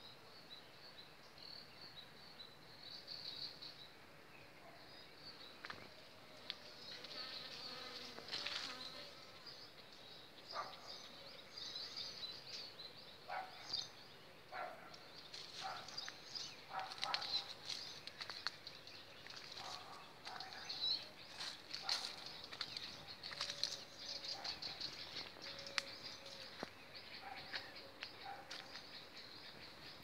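Faint, steady high-pitched insect buzzing, rising and falling in strength, with scattered short clicks and chirps more frequent in the second half.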